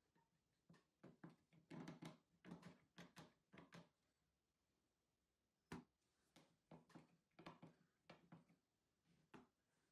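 Stanley one-handed trigger bar clamps being squeezed tight onto a stack of plywood, giving faint quick clicks with each pump of the trigger: a run of clicks, one sharper click midway, then another run.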